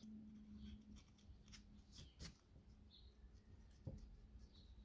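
Near silence, with a few faint clicks and light rustles of small thin wooden model-kit parts being handled, a slightly louder small knock about four seconds in, over a faint steady low hum.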